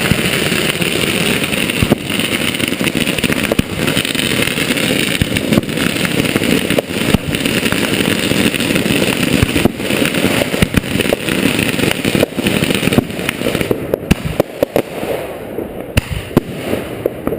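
Fireworks going off in rapid succession: a dense, continuous run of bangs and crackling with many sharp reports.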